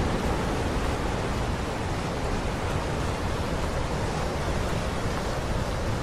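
Ocean surf breaking and washing over rocks along a rocky shore, a steady rush of water without distinct single wave crashes.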